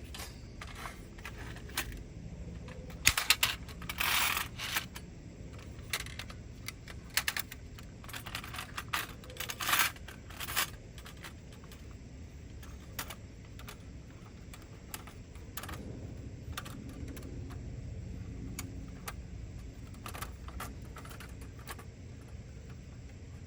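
Thin metal parts of a small Daiso folding fire pit clicking and clinking as they are handled and fitted together, in a busy run of clinks for the first half and then only the odd click.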